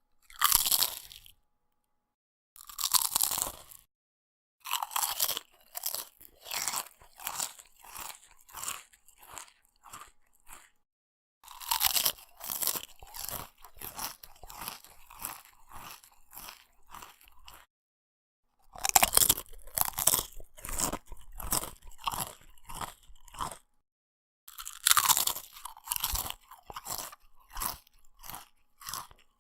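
A person eating potato chips close to the microphone: a loud crisp bite, then a run of crunchy chewing strokes, roughly two a second, fading as each mouthful is broken down. The pattern repeats several times with silent pauses between mouthfuls.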